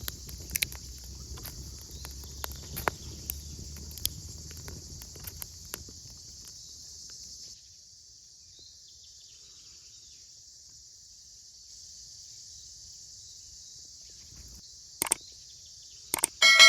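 Steady high-pitched chirring of insects, crickets or similar, with scattered sharp clicks and knocks over the first six seconds or so. Right at the end, two clicks are followed by a ringing metallic strike.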